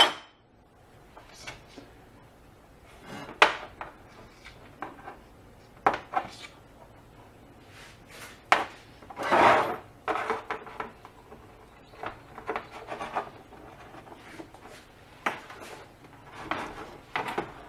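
Irregular handling noises: scattered small taps, clicks and rubs as wires and a small connector are handled on a work surface, with a slightly longer rub about halfway through.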